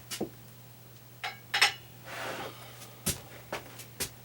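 Small metal parts of a string trimmer's blade mount clinking and knocking as they are handled and fitted back onto the head: about half a dozen separate clicks and clinks, with a short scrape near the middle.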